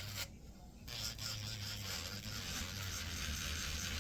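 Acrylic nail being filed: a steady scratchy abrasive noise that stops for under a second near the start, then carries on evenly.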